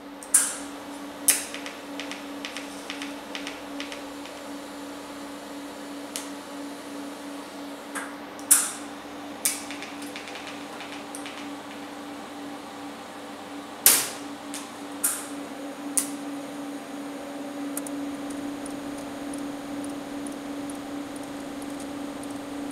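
TIG welding arc humming steadily at one pitch, with a few sharp clicks and ticks scattered over it, loudest near the start and about halfway through.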